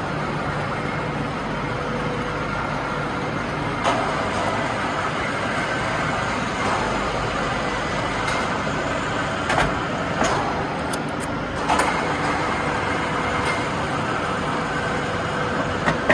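Steady running noise of factory production machinery with a faint steady hum, broken by a few short clanks and knocks.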